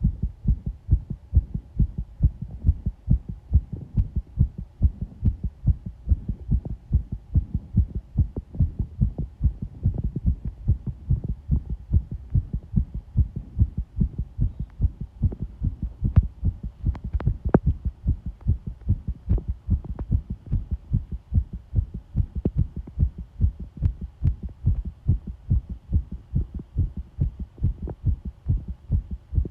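Human heartbeat heard close up: a steady, even run of low thumping beats that carries on without a break.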